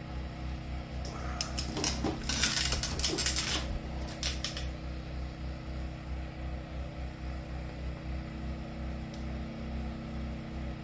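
Light clicks and clatter of small hard objects being handled, between about two and four and a half seconds in, over a steady low electrical hum.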